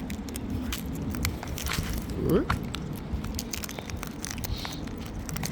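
Steady low rumble of distant motorway traffic, with many sharp little clicks and crackles of birds cracking seed, and a short rising squeak a little over two seconds in.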